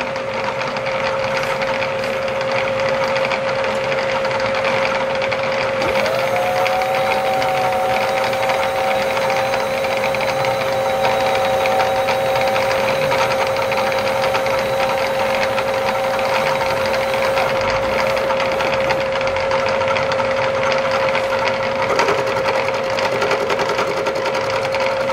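Milling machine running steadily, its motor and spindle giving a constant pitched tone. A second, higher tone slides in about six seconds in and drops out at about seventeen seconds.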